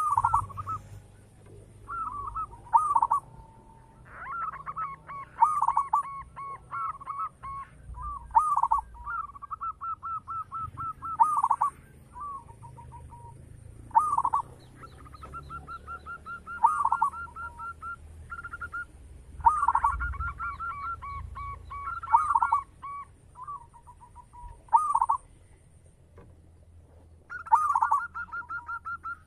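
Zebra dove (perkutut) singing: repeated phrases of short, quick coos every two to three seconds, some running into a fast rolling series of notes.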